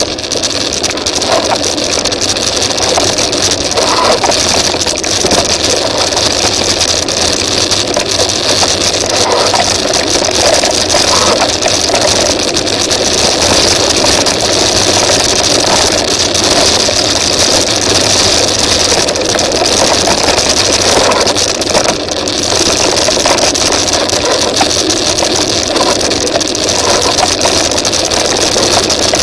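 Steady rushing noise of a mountain bike moving fast down a gravel forest track: wind on the microphone and tyres on loose gravel.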